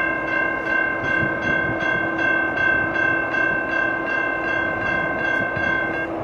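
CN freight locomotive's multi-chime air horn held in one long steady chord that cuts off near the end, over the rumble of the passing train. The uploader describes the horn as fouled.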